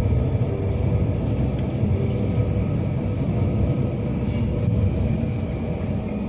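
Narrow-gauge passenger train running along the track: a steady, dense low rumble of wheels and running gear.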